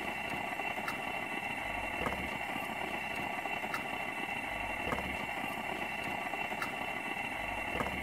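Propane camp stove burner running under a frying pan, a steady hiss, with a few faint ticks scattered through it.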